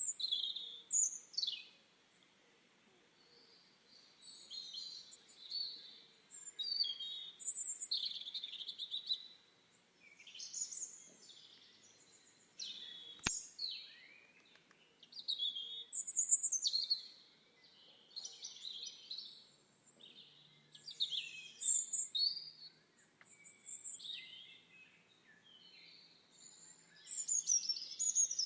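Songbirds singing in a forest: high chirping and warbling phrases that come every second or two, with short pauses between them. There is a single short click about halfway through.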